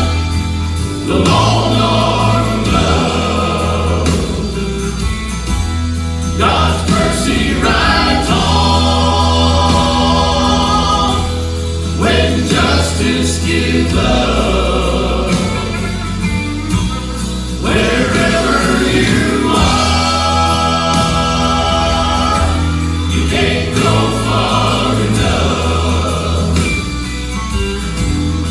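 Gospel vocal quartet singing a song together over a musical accompaniment with a steady bass line.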